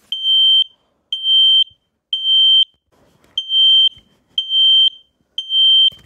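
Kidde KN-COSM-BA combination smoke and carbon monoxide alarm sounding: two groups of three high-pitched half-second beeps with a short pause between them. This is the temporal-three pattern that signals smoke or fire.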